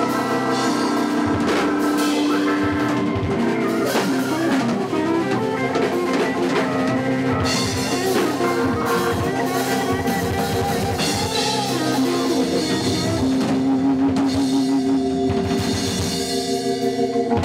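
Instrumental rock band playing: electric guitar, electric bass and drum kit, with long held notes over a steady drum beat.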